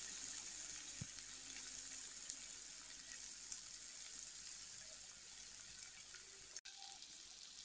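Chopped onion, tomato and green peas sizzling faintly in hot oil in a stainless steel kadai as they sauté: a steady, soft hiss that drops out for an instant near the end.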